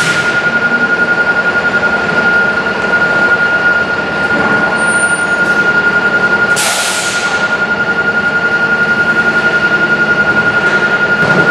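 Garbage truck engine running, with a steady high whine over it. A short burst of air hiss comes at the start and a longer one about seven seconds in.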